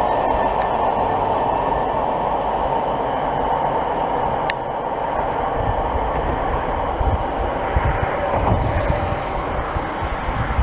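Train running past on the line, a steady rumble that grows heavier in the low end in the second half, with one sharp click about four and a half seconds in.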